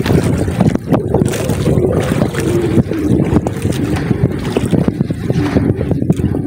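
Engine of a motorised outrigger fishing boat running steadily, with wind buffeting the microphone.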